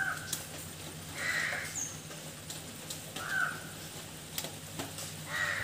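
A crow cawing four times, a second or two apart.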